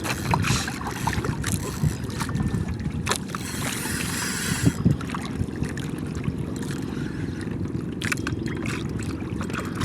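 Steady low rumble of wind and water around a small fishing boat, with scattered clicks and knocks and a brief hiss about three seconds in.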